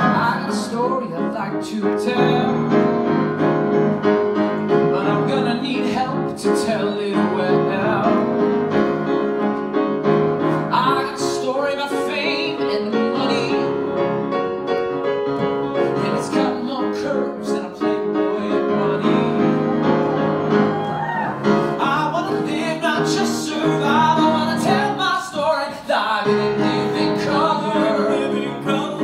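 Live band music with piano, and a male singer's voice coming in at times.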